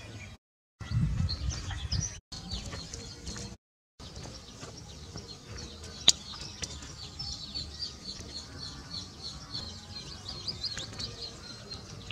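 Chick peeping rapidly and repeatedly in high, short chirps while trapped in a snake's coils. One sharp click about six seconds in, and a low rumbling noise with brief dropouts in the first few seconds.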